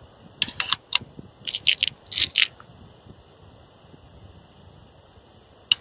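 Air rifle's action being worked between shots: a quick run of sharp metallic clicks and rattles, then a pause and one more sharp click near the end.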